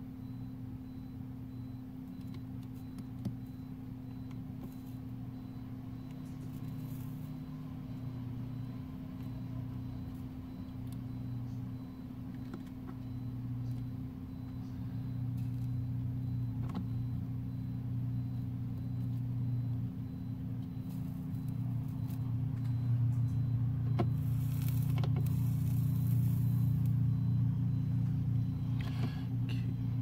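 A steady low hum that grows louder in the second half, with a few faint clicks and taps.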